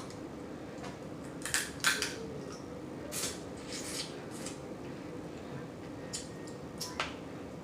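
Blue crab shells being cracked and picked apart for the meat: about half a dozen irregular, crisp cracks and clicks.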